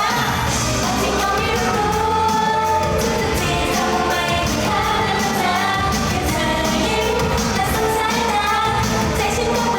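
Thai pop song played loud through a stage sound system: a woman's singing voice over a backing track with a steady bass and beat.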